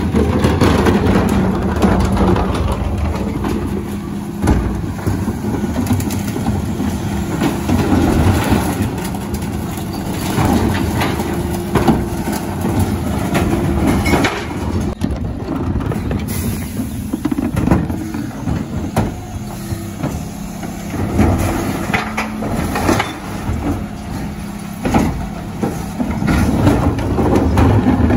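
Dennis Elite 6 refuse truck running at the rear while its Terberg bin lifters cycle, tipping wheelie bins of mixed recycling into the hopper. A steady engine and hydraulic drone sits under repeated knocks of bins on the lifters and recycling clattering in.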